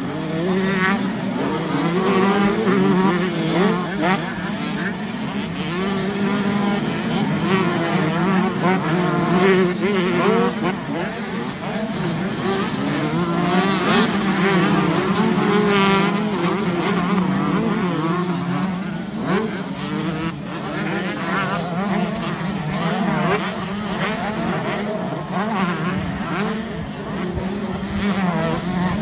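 Several 125cc two-stroke motocross bikes racing past one after another, their engines revving up and down as they rise and fall in pitch over a steady drone of more engines around the track.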